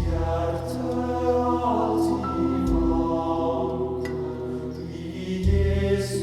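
Slow music played back through a 2A3 valve amplifier (Elekit TU-8900 kit) and two-way speakers, picked up by a microphone in front of the speaker. Long held notes sit over deep bass notes, with a few light percussive hits.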